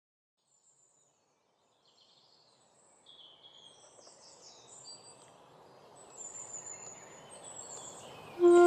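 Birds chirping in short, high calls over a soft outdoor hiss, fading in from silence. A flute begins playing just at the end.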